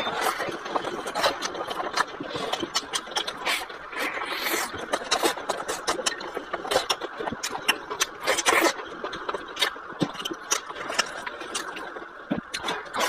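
Close-up chewing and lip-smacking while eating a soft steamed bun: many small wet clicks in an irregular run, over a steady background hiss.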